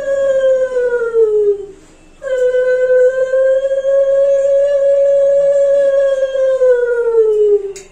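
Conch shell (shankha) blown in two long, steady blasts. The first sags in pitch and stops about a second and a half in; the second starts just after two seconds, holds, then sags in pitch as it dies away near the end.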